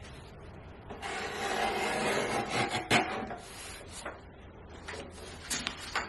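Hand rubbing and scraping on paper during notebook making, a noisy sweep lasting a couple of seconds with a sharp tap near the middle, then a few light clicks and taps.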